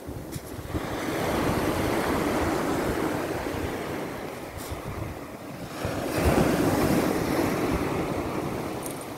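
Sea waves breaking and washing up a pebbly beach, two surges a few seconds apart, with wind rumbling on the microphone.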